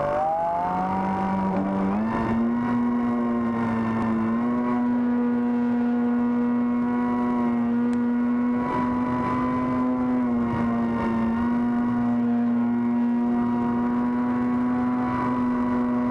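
Model Cub airplane's motor and propeller buzzing steadily in flight. The pitch steps up about two seconds in and again about four seconds in with the throttle, then holds nearly even.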